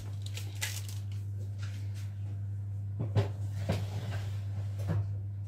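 A metal baking tray being handled and set into the oven: a few light knocks and clatters about three to five seconds in, over a steady low hum.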